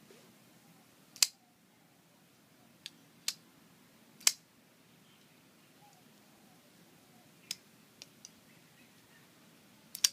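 Custom liner-lock flipper knife with titanium liners and GTC bearings being flipped open and closed by hand: a series of sharp metallic clicks and snaps. The two loudest snaps come about 1 s and 4 s in, with a double click at the very end.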